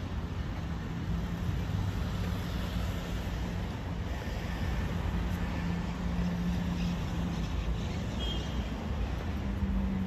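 Steady outdoor road-traffic noise: a continuous low rumble of passing cars, with a low engine hum that rises and fades now and then.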